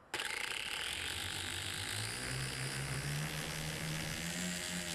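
A Latrax Alias micro quadcopter's electric motors and propellers spin up abruptly and run at a steady whir, heard through a camera mounted on the drone itself. From about two seconds in, the pitch climbs slowly as the throttle is raised.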